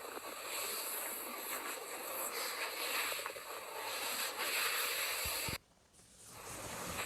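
Close-miked stomach gurgling and rumbling under heavy hiss. A couple of soft thumps come about five seconds in, then the sound cuts out for about half a second and comes back.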